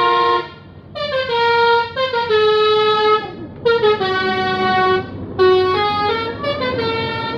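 Bus 'basuri' telolet air horn playing a tune: a run of held, horn-like notes stepping up and down in pitch, with a short break about half a second in.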